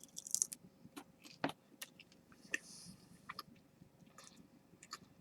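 Faint chewing of a dried ghost pepper, a scatter of short crisp crunches.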